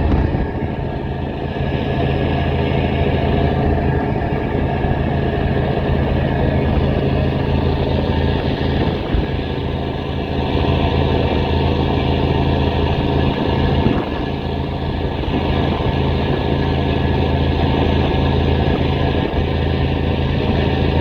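Rebuilt Cummins 855 (14-litre) straight-six marine diesel propulsion engine running steadily on a sea trial: a loud, even low drone that barely changes in pitch.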